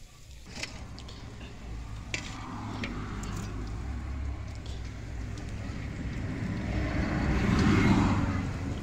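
Mandazi dough deep-frying in hot oil in a metal wok, a steady sizzle, with a few sharp clicks of the metal slotted spoon against the pan in the first few seconds. A broader rushing noise swells up and peaks near the end.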